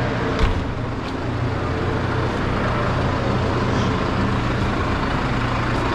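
Farm tractor engine running steadily at idle, a low even hum, with a single knock about half a second in.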